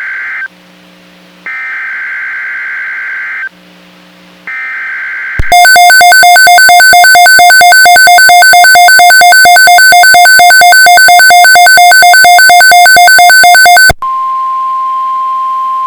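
Emergency Alert System activation on NOAA Weather Radio, heralding a Tornado Watch. It opens with three bursts of SAME digital header data, a shrill warbling screech each about two seconds long with a second's pause between. Then about eight seconds of a loud, rapidly pulsing electronic alarm, and a steady single-pitch alert tone beginning near the end.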